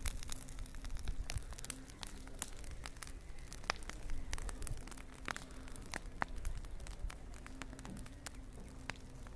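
Goats feeding on dry straw and fodder: irregular crackling and rustling clicks over a faint low background.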